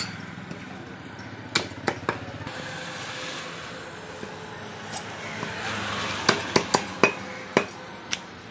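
Butcher's knife chopping a skinned rabbit into pieces on a wooden chopping block: sharp knocks of the blade hitting the wood, three close together about a second and a half in, then a quicker run of about six in the second half, over a steady low street background.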